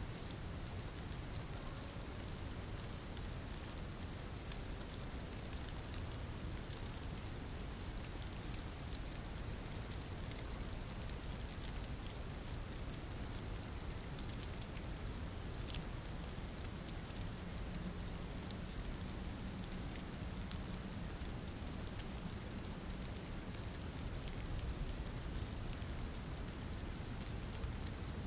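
Steady rain falling: an even hiss of rain with many small drop ticks.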